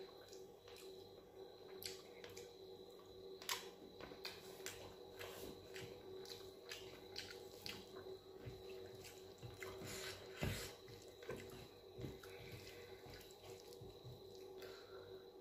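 Eating rice and dal by hand: fingers mixing the wet food on a metal plate and chewing, heard as scattered soft wet clicks and squelches over a faint steady hum.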